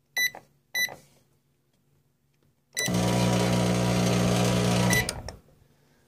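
Microwave oven's keypad beeps twice, then its high-voltage transformer switches on with a click and gives a loud, steady grumbling hum for about two seconds before clicking off. The hum comes from the transformer pulling a very heavy load through a shorted high-voltage capacitor.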